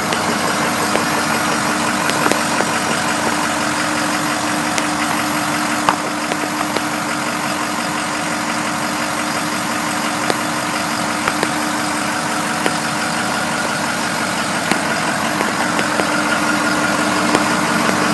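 Ford 6.0-liter Power Stroke V8 diesel idling steadily, with a few light clicks now and then.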